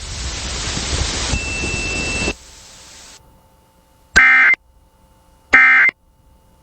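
A loud hiss of noise for about two seconds, then after a short quiet two brief buzzing data bursts about a second and a half apart: the Emergency Alert System's digital end-of-message code that closes the alert.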